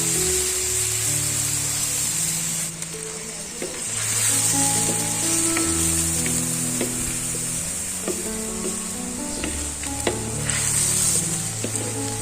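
Food frying in oil in a pan, sizzling steadily, with the clicks of a utensil stirring it. The sizzle dips for about a second roughly three seconds in, then returns.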